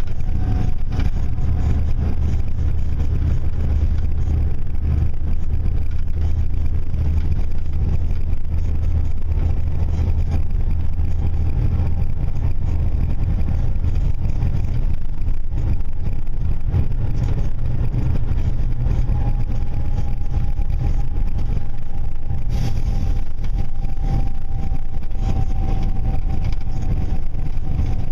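Steady low rumble of a moving vehicle's engine, with a faint steady whine joining about two-thirds of the way through.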